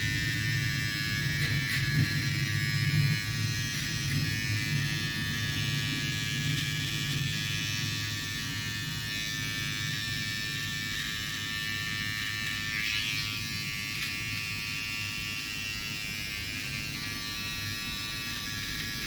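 Electric hair clippers running with a steady buzz during a haircut.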